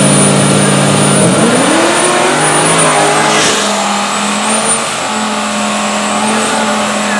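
Drag-racing car engine running loud at high revs, its pitch climbing about a second in and then holding steady, with a thin high whine over it.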